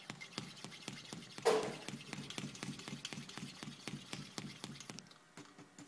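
Hand pump on a concrete air-entrainment pressure meter being stroked quickly to build up air pressure in the meter: a fast, even run of clicks, about five a second, with one louder knock about one and a half seconds in. The clicking stops about five seconds in.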